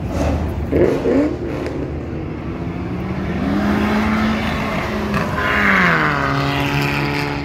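Car engine and exhaust pulling away through the gears: the pitch climbs slowly, then drops sharply about five and a half seconds in and settles lower as the car goes past.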